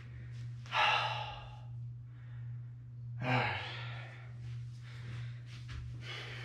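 A person sighing twice, two long breathy exhales about a second in and again about three seconds in, over a steady low hum.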